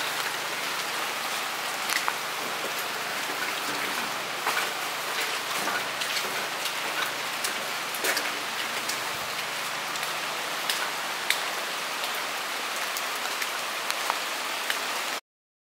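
Steady rain with many scattered sharp drops pattering close by. It cuts off suddenly near the end.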